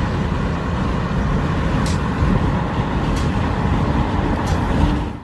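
Loud, steady rush of wind and road noise from a car driving with its window open, the wind buffeting the microphone held at the window.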